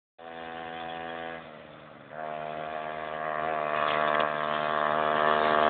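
Motorbike engine running with a steady pitched note. It dips briefly about a second and a half in, then picks up again and grows steadily louder.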